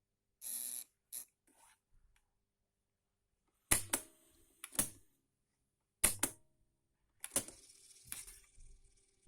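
Sharp GF-555 boombox cassette mechanism being worked by hand: a series of sharp mechanical clicks and clunks. From about seven seconds in, a faint steady motor hum with a thin high whine runs beneath them.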